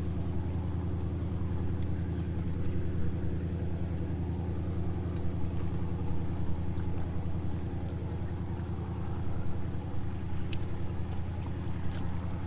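An engine running steadily at idle, a low, even rumble, with a brief hiss about ten seconds in.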